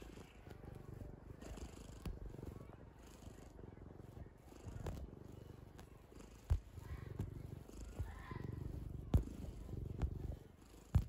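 Domestic cat purring right at the microphone, a low rumble that swells and fades with each breath. A few sharp knocks cut in.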